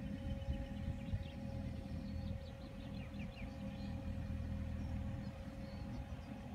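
Mini excavator's engine running steadily across the water, a low rumble with a steady hum above it.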